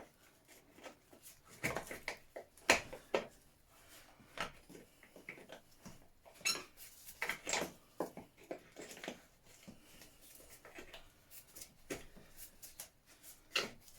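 Scattered clinks, taps and knocks of hand tools and small metal parts being handled while a scooter is dismantled, a few a second at most, with no motor running.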